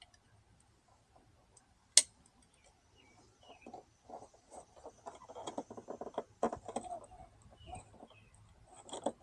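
A single sharp click about two seconds in, then a run of small plastic clicks and rattles from handling a door courtesy light and its wiring plug as the new LED light is connected.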